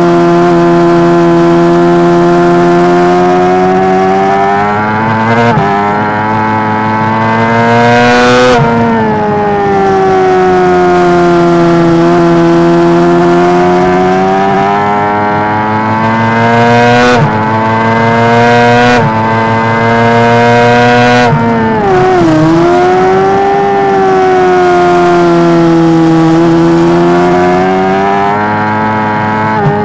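Honda CBR600RR inline-four engine at racing revs, heard from on board the bike. Its high note climbs and falls through the corners and steps sharply in pitch at several gear changes, over rushing wind noise.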